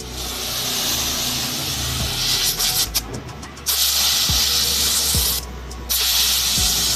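Pressurised gas hissing out of a refrigeration line or hose in three bursts of a couple of seconds each, starting and stopping abruptly, with a low hum underneath.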